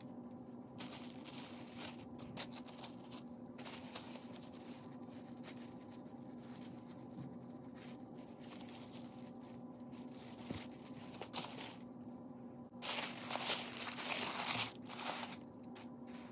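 Soft rustling of a cloth dust bag and tissue paper being handled, with a louder burst of tissue-paper crinkling lasting about two seconds near the end as a sandal is unwrapped. A faint steady hum runs underneath.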